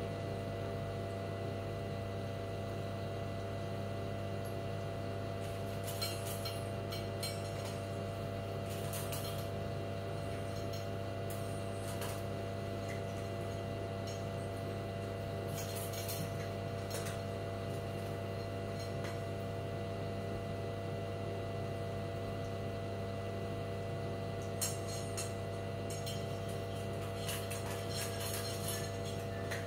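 Ginger cat eating from a bowl: several short clusters of clicks and clinks, over a steady low hum.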